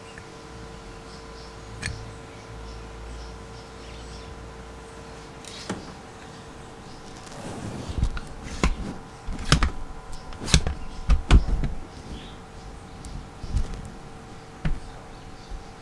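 Metal nightlatch case being handled and fitted down over its brass cylinder on a workbench: sharp clicks and knocks of metal against metal and the bench, a few at first, then a dense run about halfway through that is the loudest part, over a faint steady hum.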